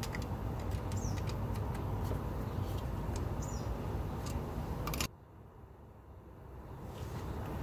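Light metallic clicks of needle-nose pliers working at a brake hose fitting, over a steady low background rumble, with a couple of faint high bird chirps. The sound drops off abruptly about five seconds in.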